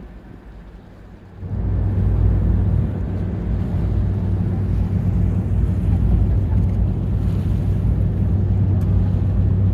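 Sightseeing boat's engine and hull rumble, a steady low drone with wind on the microphone, that jumps sharply louder about one and a half seconds in.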